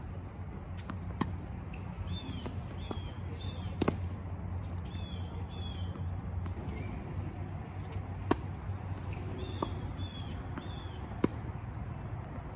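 Tennis ball struck by racquets in a rally: about five sharp pops spaced one to four seconds apart. A bird chirps short repeated notes in between.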